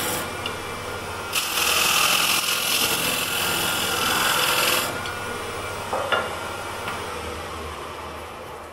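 Hand-held turning tool cutting a spinning glued-up hardwood block on a wood lathe, a hissing scrape that is strongest for about three and a half seconds. The cut then eases off with a single knock around six seconds in, and the sound fades away.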